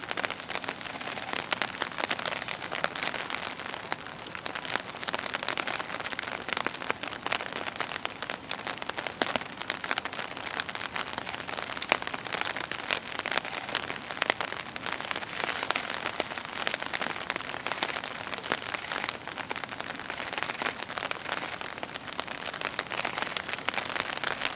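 Steady rain falling: a dense, even hiss of drops with many small sharp taps of drops striking wet surfaces.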